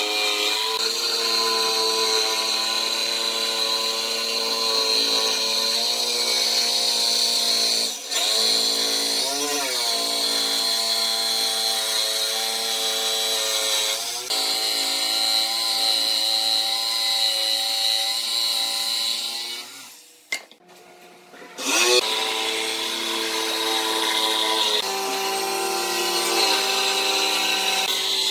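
Corded jigsaw cutting a curve through a thick glued-up wooden panel, its motor whining steadily as the blade saws through the wood. About twenty seconds in it stops for a moment, then starts again with a quick rise in pitch as the motor spins back up.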